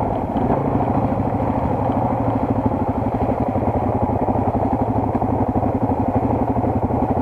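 Single-cylinder four-stroke enduro motorcycle engine running at low, steady revs, with an even, rapid exhaust pulse.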